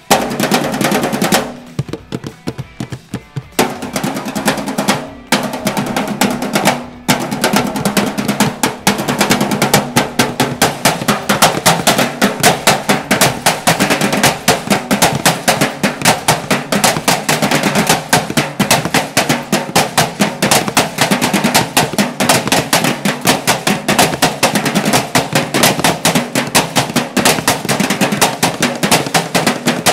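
A junk-percussion drum line beating drumsticks on garbage cans in a fast, driving rhythm with rapid rolls, with a few short stops in the first seven seconds.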